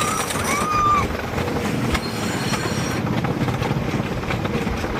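A train running on rails, its wheels squealing in a short high glide about the first second, over a steady rolling noise.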